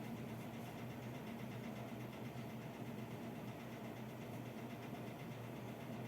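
A steady low hum with no change in level.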